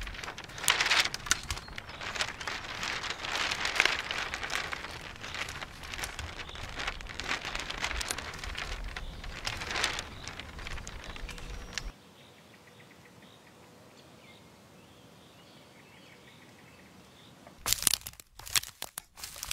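A large paper print rustling and crinkling, a dense crackling that stops suddenly about twelve seconds in and leaves a quiet stretch. Near the end, loud crunching footsteps on dry, cut pine branches and needles.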